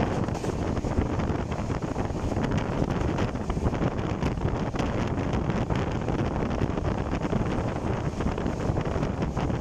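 Steady wind rush buffeting a phone microphone held at the open window of a moving train, over the train's steady running noise.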